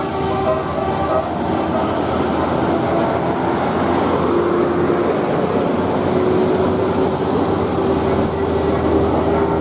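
A bus passing close by with its engine and road noise. Its multi-note telolet air horn fades out about a second in, and a single steady horn note is held through the second half.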